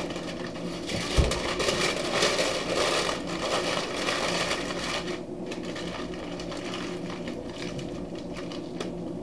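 Aluminum foil crinkling and crackling as it is folded over and crimped closed around a rack of pork spare ribs, busiest in the first five seconds, with a dull thump about a second in.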